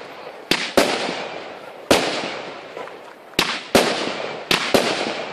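Aerial fireworks bursting one after another in the night sky: about seven sharp bangs, some in quick pairs, each trailing off.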